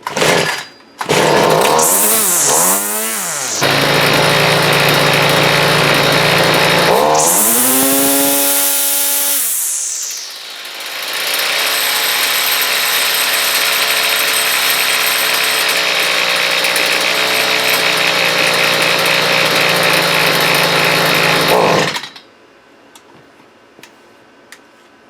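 Two-stroke gas string trimmer engine catching, revving up and down, then running at high speed with one brief drop in revs, and cutting off suddenly near the end. Its carburetor and fuel primer pump have just been repaired.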